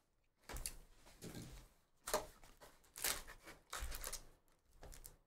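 An Upper Deck hockey hobby box and its card packs being opened and handled: a string of short crinkling and rustling sounds of wrapper and cardboard.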